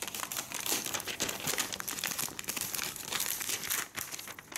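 Clear plastic protective cover being peeled off a laptop and crinkled in the hands: continuous irregular crackling and rustling of thin plastic film.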